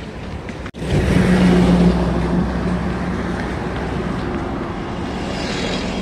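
Highway traffic at the roadside: a motor vehicle's engine running close by, loudest just after a short break about a second in, then steady traffic noise.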